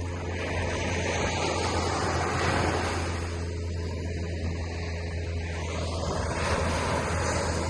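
Surf washing onto the beach, swelling twice, with a steady low rumble underneath.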